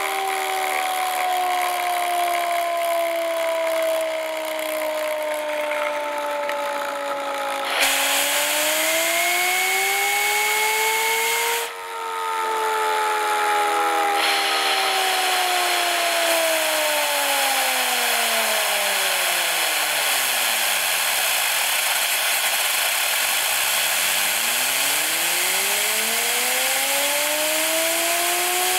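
Home-built Tesla turbine with CD discs running on compressed air: a steady hiss of air through the injector, with a whine from the spinning rotor whose pitch follows its speed. The whine falls, climbs briefly, then sinks away to a stop about three quarters of the way in as the air is turned against the discs, and rises again as the rotor spins up in the opposite direction.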